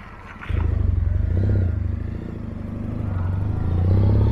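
Triumph T100 sidecar outfit's parallel-twin engine pulling away under throttle. The engine note jumps up about half a second in, eases slightly midway, then builds again before dropping back near the end.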